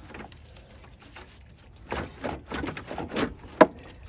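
Scattered knocks and clatter of the radiator being worked up and out of the car as it bumps against parts around it, with one sharp knock about three and a half seconds in.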